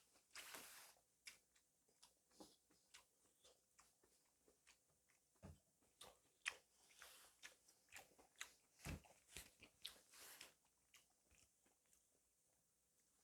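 Close-up eating sounds: soft chewing with many small, sharp mouth clicks and a few brief swishes, dying down near the end.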